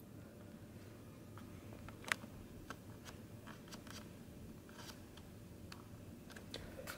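Faint, scattered light taps and rustles of small cardboard cosmetic boxes and packaging being handled on a desk, with one sharper tap about two seconds in, over a low room hum.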